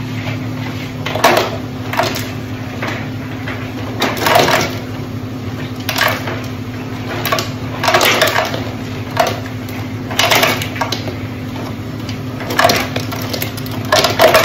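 Brema ice maker dispensing ice into a bucket: cubes clatter out in irregular bursts every second or two, over a steady low hum.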